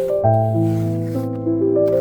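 Calm instrumental background music, with held chords and notes changing about every half second.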